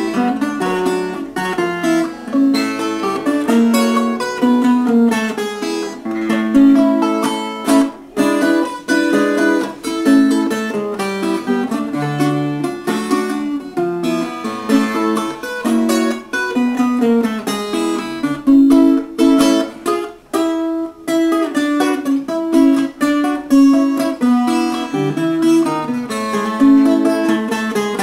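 Ten-string viola caipira played solo, a run of quick plucked notes forming a picked tune.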